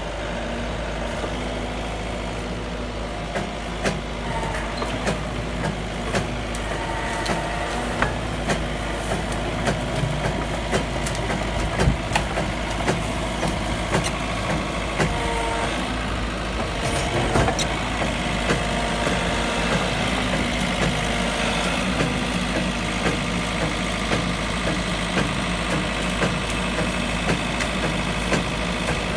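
JCB compact excavator's diesel engine running steadily under hydraulic load while its boom-mounted Orsi branch cutter, a bar of rotary saw blades, cuts through tree branches. Frequent sharp cracks and snaps of wood run over the engine sound.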